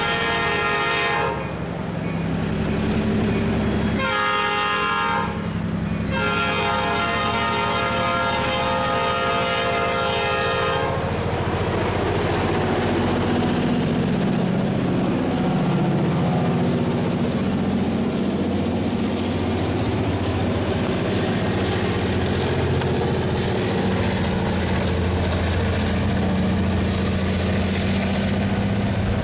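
EMD SW1500 switcher locomotive blowing its air horn in the grade-crossing pattern: long, long, short, long, the last blast ending about eleven seconds in. Its diesel engine then rumbles past, followed by the rapid clickety-clack of freight-car wheels on the rail joints as tank cars and covered hoppers roll by.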